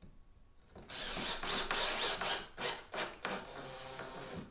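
Cordless drill driving a drywall screw into plywood: the motor spins up about a second in, and the screw grinds its way into the wood for about three and a half seconds, easing off near the end.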